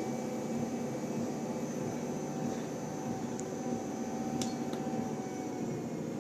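Treadmill running steadily: an even motor hum with a steady whine, and a few faint clicks around the middle.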